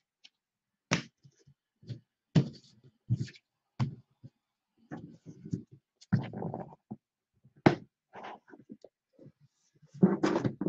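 Cards and boxes being handled on a tabletop: a series of irregular sharp knocks and thunks, with brief scuffing and rustling between them.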